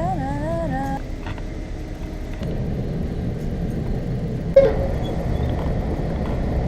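Steady low rumble of a moving vehicle, with a person humming a tune over the first second and a brief sharper sound about four and a half seconds in.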